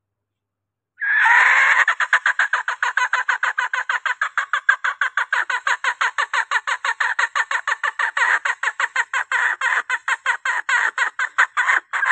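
Junglefowl hen calling: a longer opening note, then a fast, even run of short clucking calls, about six a second. It is a lure call for drawing in junglefowl cocks.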